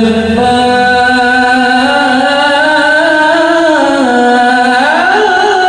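A man's voice reciting the Qur'an in the melodic qiraah style into a microphone over a PA system. It is one long held phrase that slowly bends up and down in pitch, rising near the end.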